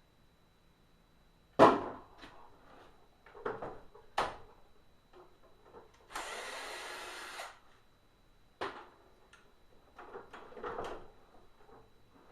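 Plastic housing parts of a Hoover SteamVac knocking and clattering as it is dismantled, the loudest knock about a second and a half in and a few more after. About six seconds in, a steady hissing whir lasts for about a second and a half.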